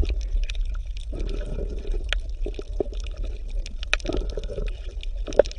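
Pool water splashing and sloshing around bottlenose dolphins moving at the surface, with many irregular small splashes and clicks over a steady low rumble.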